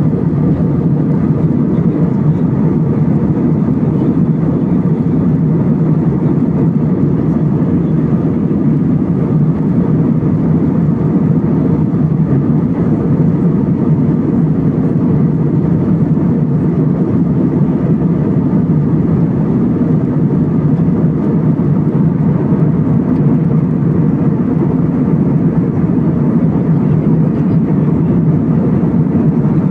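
Airbus A320 cabin noise in cruise: the steady, deep rush of jet engines and airflow heard inside the cabin at a window seat, unchanging throughout.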